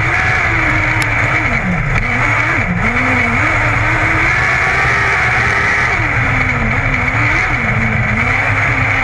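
Modlite dirt-track race car engine heard from inside the cockpit, running hard on a qualifying lap. Its pitch dips and climbs again several times as the car goes through the turns of the oval.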